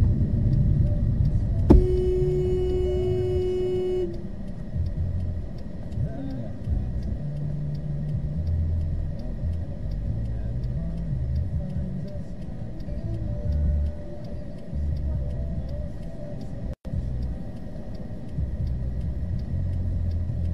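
A car horn sounds once, starting a little under two seconds in and held for about two seconds. Under it, and for the rest of the time, a car engine and road noise rumble low, heard from inside a car's cabin.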